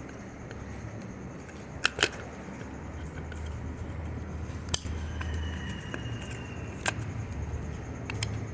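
A few sharp clicks and taps of small parts and tools handled while a contactor motor starter is taken apart: a close pair about two seconds in, then single ones near the middle and later, over a low steady hum.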